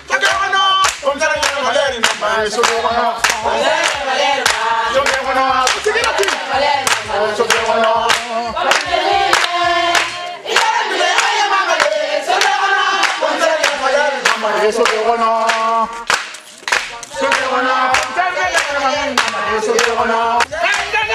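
A group of voices singing together over steady, rhythmic hand-clapping.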